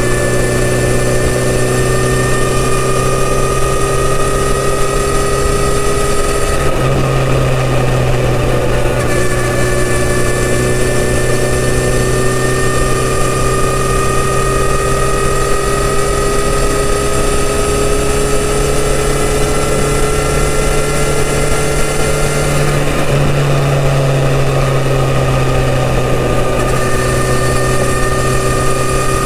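Kawasaki Z900RS inline-four engine through its stock full exhaust system, pulling steadily under way with the pitch slowly rising as it gains speed. The pitch drops at two upshifts, about a quarter of the way in and again about three-quarters of the way in.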